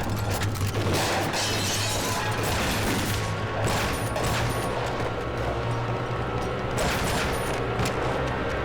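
Dramatic soundtrack music over a steady low drone, with several sudden crashing impacts: about a second in, around three to four seconds, and again near seven to eight seconds.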